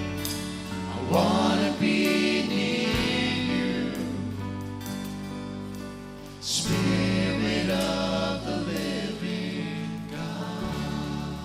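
Gospel-style worship song: voices singing held chords over instrumental accompaniment, with a louder new chord coming in about six and a half seconds in.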